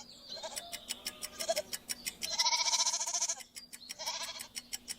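Horse whinnying: a long quavering call about halfway through, with fainter calls around it, over a run of quick, regular clicks.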